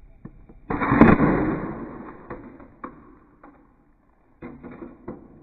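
A loud burst about a second in, fading out slowly over the next few seconds, followed by scattered sharp cracks and pops.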